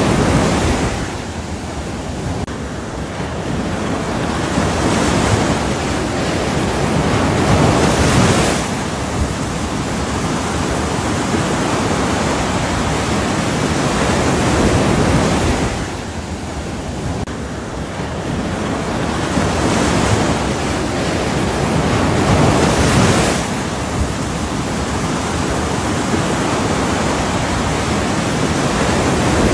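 Ocean surf: a continuous rushing of breaking waves that swells and eases in long surges, loudest about eight seconds in and again past twenty seconds.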